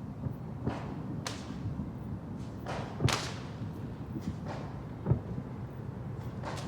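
Fireworks going off: a string of sharp bangs and cracks at uneven intervals, with the loudest about three seconds in and a deep thump about five seconds in, over a steady low rumble.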